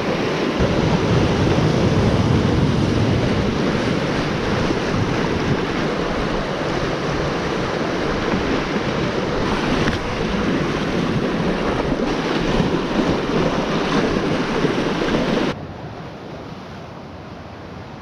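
Sea surf surging and washing against a rocky shore, with wind buffeting the microphone. The sound drops suddenly to a quieter wash near the end.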